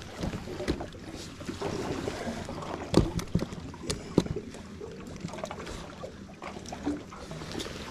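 Scattered knocks and clicks of handling on a small fishing boat while a crappie is brought in and landed, the loudest a sharp knock about three seconds in.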